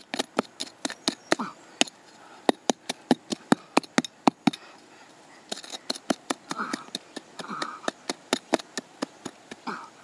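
Small hatchet chopping into hard red clay and stones: a rapid run of sharp strikes, about four a second, pausing for about a second midway before resuming.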